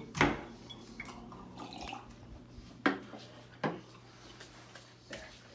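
Drinking glasses set down on a small table: three sharp knocks, one just after the start and two about three and four seconds in.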